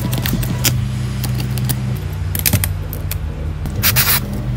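A small metal screwdriver scraping and clicking against the mud-caked iPad mini frame and its screws, with a short hiss about four seconds in as an aerosol spray can is used over the board. Steady low background music plays underneath.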